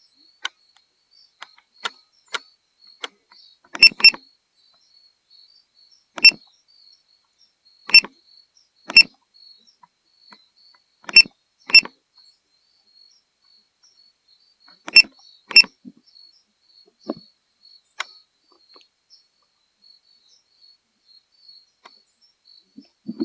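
A string of sharp, separate clicks, some in quick pairs, over a faint steady high chirring of insects.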